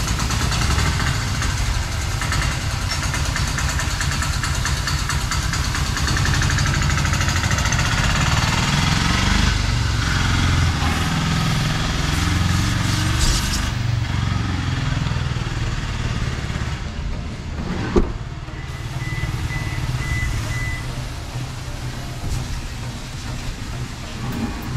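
A tempo's engine running loudly close by, a heavy low rumble that eases somewhat about two-thirds of the way through. Over it is the hiss of a 12 V portable pressure washer's water jet spraying a car's body.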